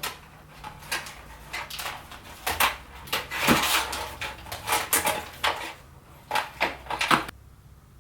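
Hands working on computer hardware: an irregular run of clicks, knocks and rattles of plastic and metal parts and cables being handled and fitted, busiest in the middle and stopping near the end.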